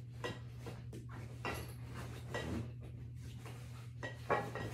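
Rummaging through a baseball equipment bag: scattered knocks, clicks and rustles of gear being moved about, with a sharper knock about four seconds in.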